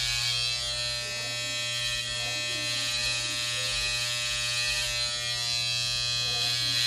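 Corded electric hair trimmer buzzing steadily as it is run along the hairline to edge it up.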